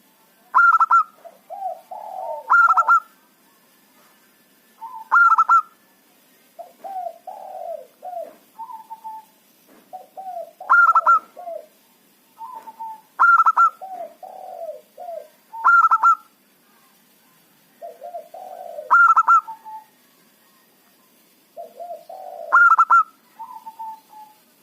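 Zebra dove (perkutut) singing its cooing song over and over, each phrase a loud high note joined by a run of lower coos, repeated every two to three seconds.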